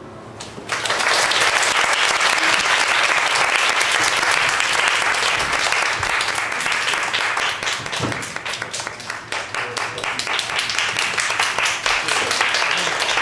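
Audience applause breaking out about a second in and continuing: many hands clapping together.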